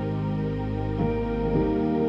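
Soft ambient background music of sustained, layered tones, with the notes shifting to a new chord about a second in.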